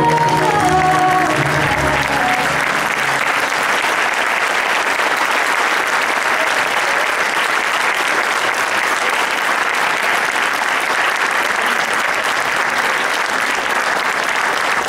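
Audience applauding steadily. The last notes of music fade out in the first couple of seconds.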